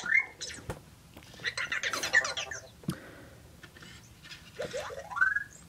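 Anki Vector robot making short electronic chirps and warbles as it reacts to being petted: a rising chirp at the start, a burst of warbling about two seconds in, and a pair of rising chirps near the end, with a few faint clicks between.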